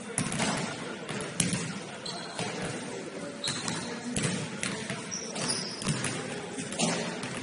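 Basketball bouncing on a gym floor during play: a string of irregular sharp knocks, with a few short high squeaks and a murmur of voices echoing in the hall.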